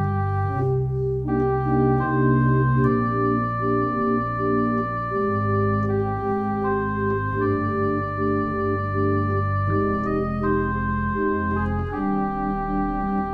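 Organ playing slow, sustained chords, the notes held steady without fading and the harmony changing every second or so over a low bass line.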